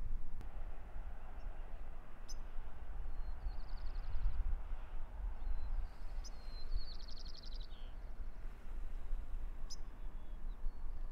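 Field ambience: small birds calling, with two short, fast trills about four and seven seconds in (the second louder) and a few brief chirps, over a low steady rumble.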